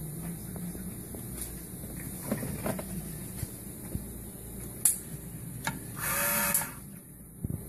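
Bench-top brush spring assembly machine cycling after its two palm buttons are pressed: a sharp click about five seconds in, then about half a second of loud air hiss, then a couple of knocks as it returns. Earlier, light clicks of small metal parts being set into the fixture.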